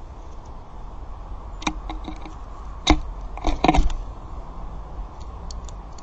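A few sharp taps and clicks from a white collared dove moving about a seed-strewn feeder tray close to the microphone, over a steady low hum. The taps come singly at first, and a cluster of them a little past halfway is the loudest.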